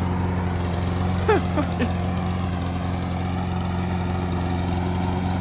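Briggs & Stratton OHV single-cylinder engine on a Saber Edge lawn mower running at a steady speed while belching smoke. A couple of short falling chirps come about a second and a half in.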